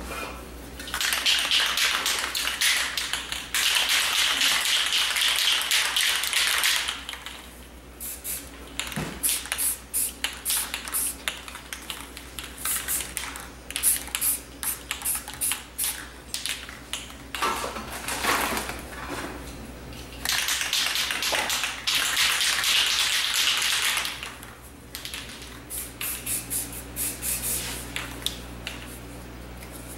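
Aerosol spray paint cans hissing in two long sprays, one starting about a second in and running several seconds, another for a few seconds in the second half. Between the sprays come quick, irregular sharp clicks and rattles as the cans are shaken and handled.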